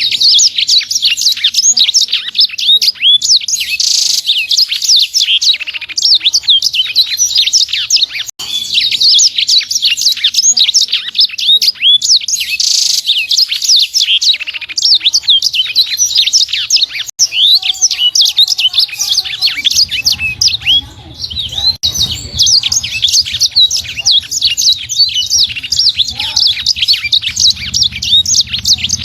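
A small songbird of the kind sold in Indonesia as a 'sanger' singing a fast, dense, unbroken run of high chirps and sweeping whistled notes. The rapid bursts are the 'tembakan rapat' that keepers prize. A low hum joins in about two-thirds of the way through.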